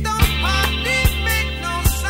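Background music with a steady drum beat, a drum hit about every 0.8 seconds, over a sustained bass, with a melody line of sliding notes above.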